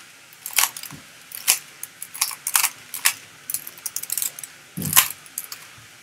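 Plastic Rubik's Cube being twisted rapidly to scramble it, its layers clicking and clacking at an irregular pace. A louder knock comes about five seconds in.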